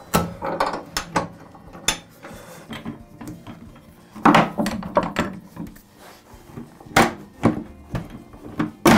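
Bar clamps being unscrewed and taken off a glued-up tabletop panel: a series of sharp knocks and clunks as the clamp screws are turned and the jaws shift against the wood, the loudest about four seconds in, at seven seconds and near the end.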